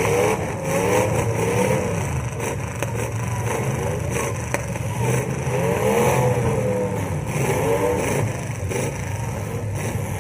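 Several demolition derby cars' engines revving hard, their pitch rising and falling over and over as the cars accelerate into one another.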